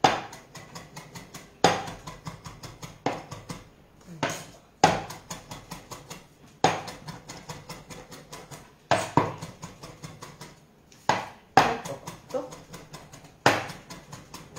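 Chef's knife mincing fresh parsley and basil on a wooden cutting board: bursts of quick taps of the blade against the board, about six to eight a second. Each burst opens with a louder chop, and a new one starts every second or two.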